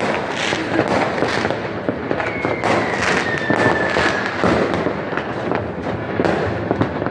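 New Year's Eve fireworks and firecrackers going off thick and fast all around: a dense run of overlapping bangs and crackles. About two seconds in, a single whistle falls slowly in pitch for about two seconds over the bangs.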